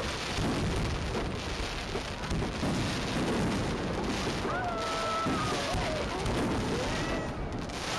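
Fireworks display: many aerial shells bursting at once, a dense, continuous crackle mixed with booms. From about halfway through, high wavering tones rise and fall over the crackle.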